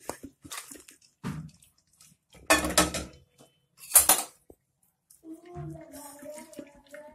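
Steel pot and utensils knocking and clattering in a few separate bursts, the loudest about two and a half and four seconds in.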